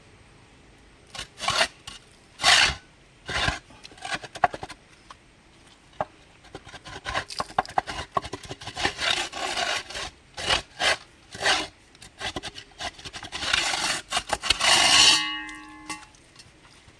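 Steel crowbar scraping against concrete in irregular strokes, working at a drilled concrete core that won't come out. The strokes come thickest in the second half, and the last one ends in a brief metallic ring.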